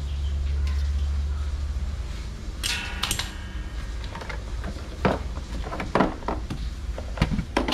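Metal hardware being handled: a low rumble fades out over the first two seconds, then a ringing metallic clink about two and a half seconds in, followed by a run of short knocks and clicks as parts are moved and set down.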